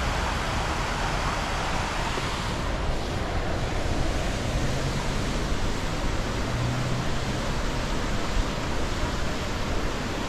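A large river rushing, a steady even noise of flowing water with no break or change.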